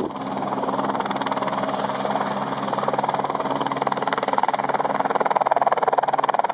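Helicopter running, its engine and rotor making a steady, fast pulsing chop that grows slightly louder.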